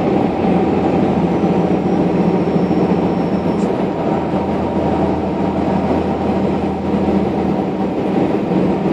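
Engine and road noise inside a vehicle's cabin while driving at steady speed: a constant drone with a low hum.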